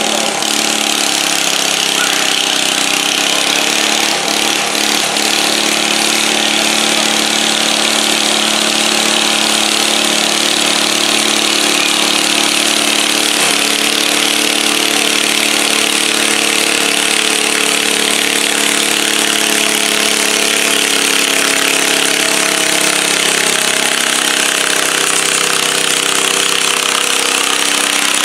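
Garden tractor engine running hard at high, steady revs while pulling a weight-transfer sled.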